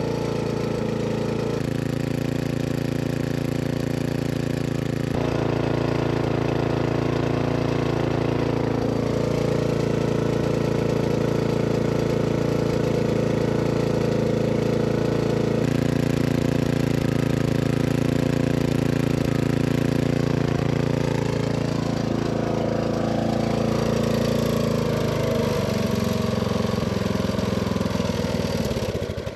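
Small single-cylinder engine running steadily, lubricated with thin vegetable oil in place of engine oil. Its pitch sags over the last few seconds, and it cuts out at the very end.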